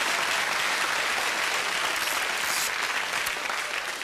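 Studio audience applauding steadily, a dense clapping that eases off near the end.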